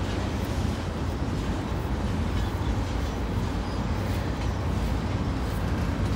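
Freight cars of a long CSX train rolling across a steel truss railroad bridge overhead: a steady low rumble with a few faint clicks.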